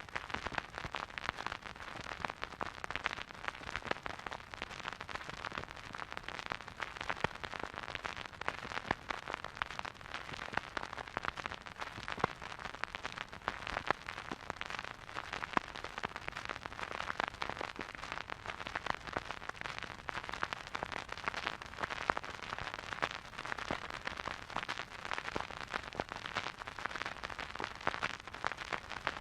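Surface noise of a vinyl record playing a silent groove: a steady hiss thick with fine, irregular crackles and pops from dust and wear in the groove.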